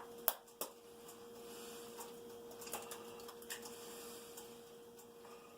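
A few sharp clicks of a utensil against cookware in the first second, then fainter scattered ticks, over a steady hum.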